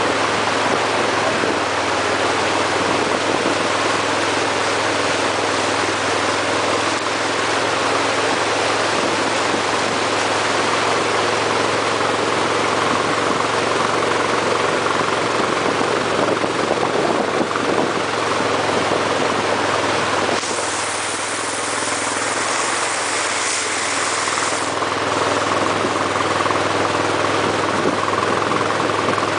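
Pickup truck engines running steadily at low speed while driving through floodwater, over a continuous rush and churn of water. The water noise turns brighter and hissier for a few seconds past the middle.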